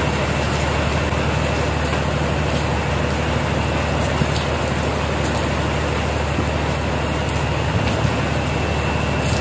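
Steady machinery drone: a constant low hum under an even hiss, with a thin high whine and a few faint knocks.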